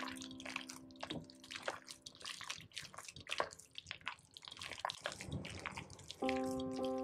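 Raw minced beef and chicken mixed with egg, squelching wetly as it is kneaded by hand in a bowl: irregular squishes and smacks. Soft background music fades out about a second in and comes back near the end.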